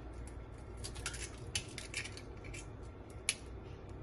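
Light, scattered clicks and taps of eggshell and fingers against a plastic blender jug as eggs are broken into it, with one sharper click about three seconds in.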